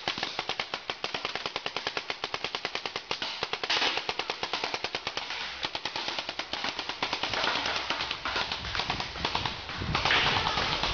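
Paintball markers firing in rapid, near-continuous strings of shots, about nine a second.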